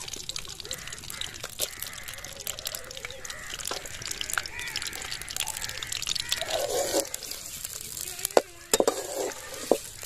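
Chopped onions sizzling and crackling in hot ghee in a steel pan. A metal ladle knocks and scrapes against the pan a few times near the end.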